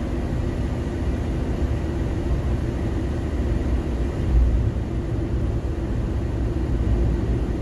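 Steady road and engine noise heard inside the cabin of a moving passenger van, a low rumble with a brief louder swell about four seconds in.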